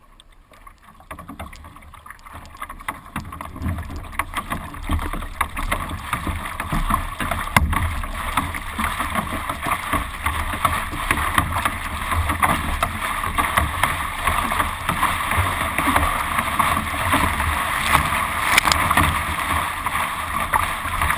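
Water rushing and slapping against the bow of a carbon surf ski as it is paddled through small chop, with irregular splashes. It starts quiet and builds over the first few seconds to a steady wash.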